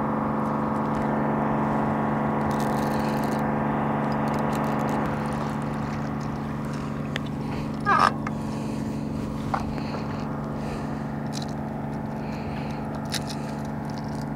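Electric trolling motor on a bass boat humming steadily. A short sharp sound comes about eight seconds in as a bass is swung aboard.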